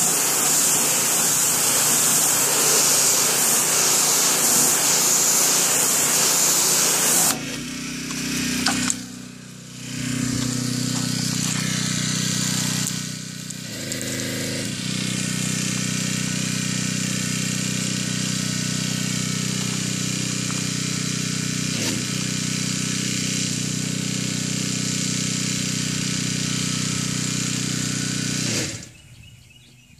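High-pressure water jet from a gasoline pressure washer spraying against vinyl siding, a loud hiss, for about the first seven seconds. Then the pressure washer's gas engine running steadily driving its pump, until it is shut off shortly before the end.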